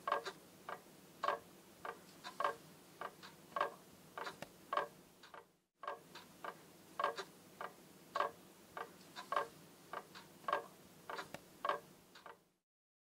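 A clock ticking steadily, a little under two ticks a second, alternating stronger and weaker. It cuts out briefly about six seconds in and stops shortly before the end.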